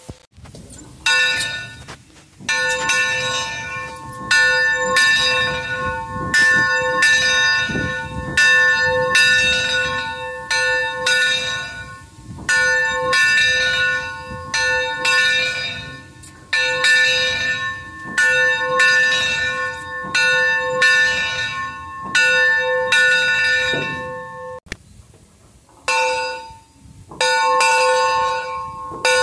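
Brass steam-locomotive bell being rung over and over, its clapper striking roughly once a second. Each strike rings on into the next. The ringing breaks off for about a second near the end, then starts again.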